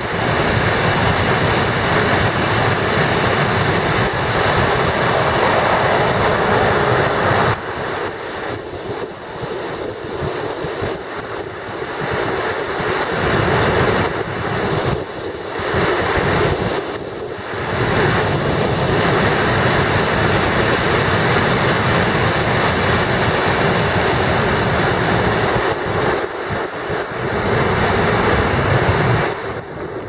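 Langfossen waterfall's large volume of water crashing down a steep rock face: a loud, dense, steady rush of falling water that dips and wavers for a stretch in the middle.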